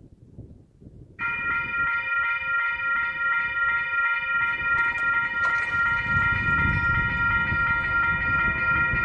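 Railroad grade-crossing warning bell starting suddenly about a second in and ringing on steadily with evenly repeated strikes, as the crossing is activated for an approaching train. A low rumble builds beneath it from about six seconds in.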